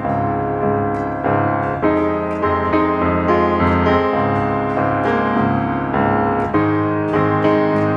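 Background piano music, a gentle melody with notes struck at a steady pace.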